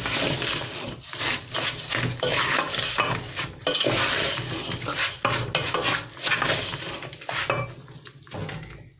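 A wooden spoon stirring rice frying in an aluminium pot, with repeated scrapes and knocks against the pot's sides and bottom. The stirring thins out and stops about seven and a half seconds in.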